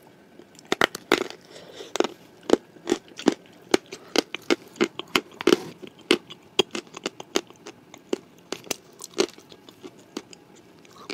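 Close-miked crunchy chewing of a shortbread cookie spread with Uzbek blue clay paste: a run of sharp, irregular crunches, several a second, thinning out near the end.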